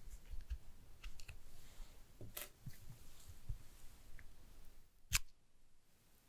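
Scattered small clicks, taps and light handling noises of a phone and its packaging being handled, with one sharp click about five seconds in.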